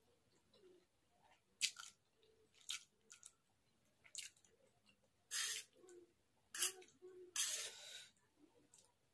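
A person eating chow mein noodles close to the microphone: a series of short wet slurps and chewing smacks, with longer slurps about five seconds in and near the end.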